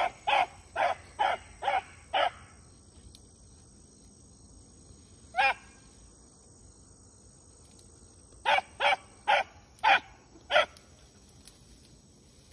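Rabbit hound barking in short, sharp barks: a quick run of about six at the start, one alone about five seconds in, then a run of five near the end. This is the hound giving voice while running a rabbit's track.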